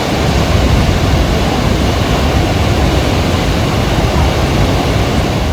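Steady, loud rushing of a large waterfall, Cumberland Falls, with a deep rumble underneath; it cuts off suddenly at the end.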